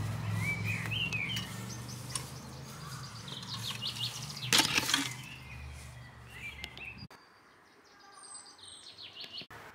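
Small birds chirping, with a sharp metallic clatter about halfway through as a rusty metal gate rail is handled. A steady low hum runs underneath and stops abruptly about seven seconds in.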